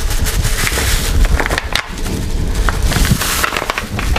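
Crinkly rustling and crackling of handling while flour is poured into a mixing bowl, over a low rumble of rubbing close to the microphone.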